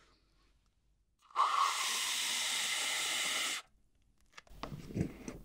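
Aerosol whipped-cream can spraying cream straight into the mouth: a steady hiss of about two seconds, starting a little over a second in and cutting off suddenly.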